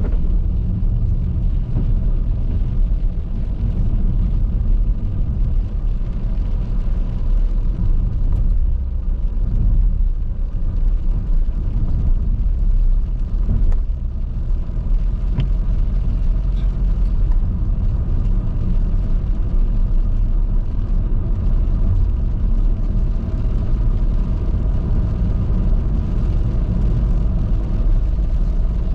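Car driving steadily on a highway: a continuous low rumble of engine and tyres on the road surface.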